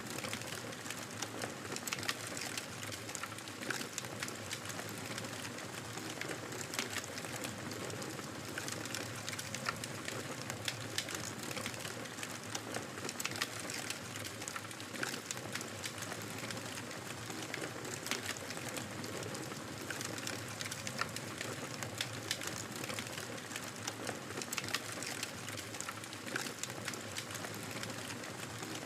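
Fire crackling in a fireplace: a steady hiss with frequent sharp pops and snaps at irregular intervals.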